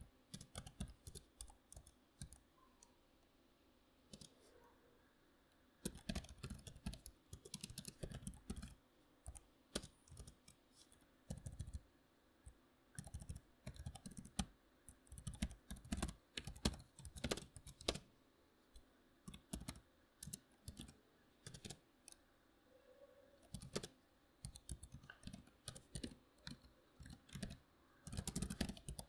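Typing on a membrane keyboard: irregular runs of soft key clicks with short pauses between them, and one longer break of about two seconds a few seconds in.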